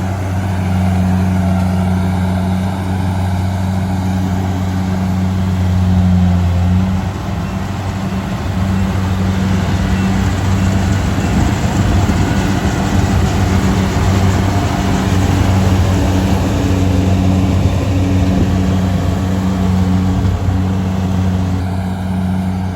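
Rice combine harvester's engine running steadily with a loud, low hum. About seven seconds in the hum turns rougher and more uneven.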